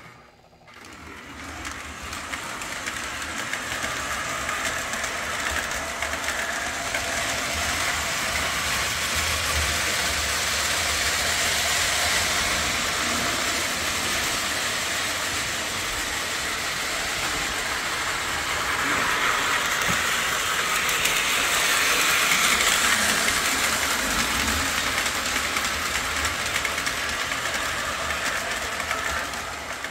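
Lionel O-27 model steam locomotive pulling its train around three-rail track, with the wheels and motor running on the rails. The noise builds over the first couple of seconds as the transformer throttle is turned up, then runs steadily with small rises and falls as the train goes round the layout.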